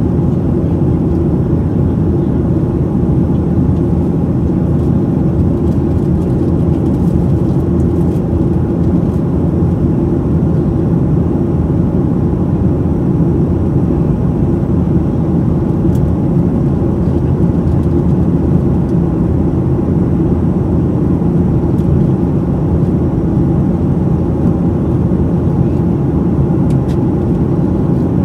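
Steady cabin noise inside a Boeing 737-900ER in flight: a deep, even rumble of its two CFM56-7B27E engines and the airflow, heard from a window seat over the right wing.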